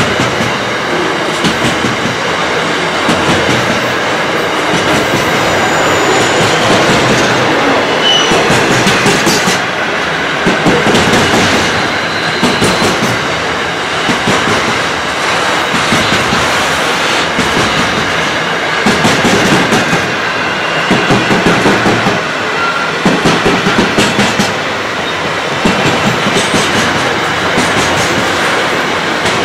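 Container wagons of a Pacific National freight train rolling past, with the steady rumble of the wheels and repeated clusters of clickety-clack as each set of bogies crosses the rail joints.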